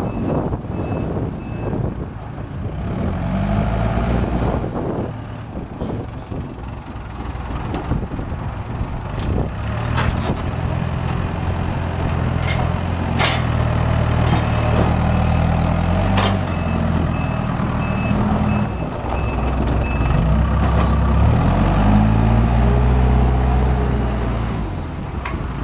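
Carelift telehandler's Cummins diesel engine running under load, its pitch rising and falling as the machine drives and works its boom. A reverse alarm beeps at the start and again for a few seconds in the second half, and there are three sharp knocks about ten, thirteen and sixteen seconds in.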